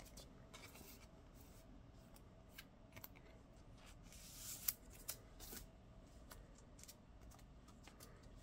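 Faint rustling and small clicks of a photocard in a clear plastic sleeve being handled and slid into a binder page pocket, with one brief louder sliding rustle about four and a half seconds in.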